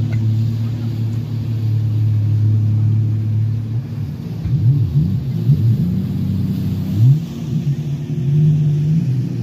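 Jet ski and motorboat engines running on the water. A steady engine drone for the first four seconds or so gives way to several engines revving up and down, their pitch rising and falling as the riders throttle and manoeuvre.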